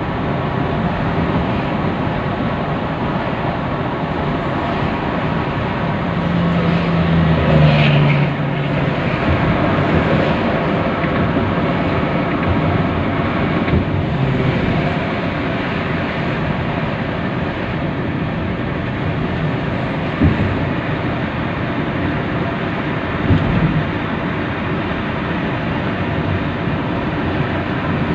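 Steady road and engine noise inside a vehicle's cabin at highway speed, swelling for a couple of seconds about a quarter of the way in, with two short thumps in the second half.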